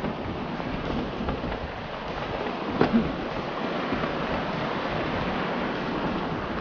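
Steady rushing noise of wind on the microphone and mountain bike tyres rolling over a trail, with two sharp knocks close together about three seconds in.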